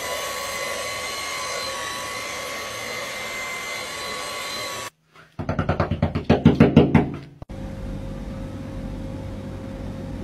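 Cordless stick vacuum cleaner running with a steady whine, cutting off suddenly about five seconds in. Then a cat knocking on a glazed door: a quick run of about a dozen knocks over two seconds.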